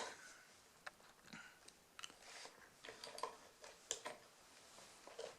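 Faint, irregular small metallic clicks of a lock pick and tension wrench working the pin tumblers of a rim cylinder lock.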